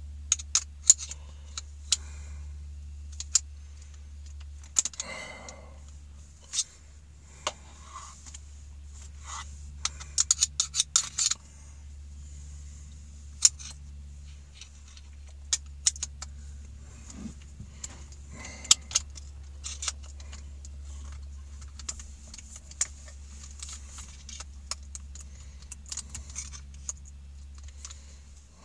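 Scattered metallic clicks, taps and rattles of hand tools, a screwdriver and then pliers, working at a drill's quick-release chuck, with a quick cluster of clicks about ten seconds in. A steady low hum runs underneath.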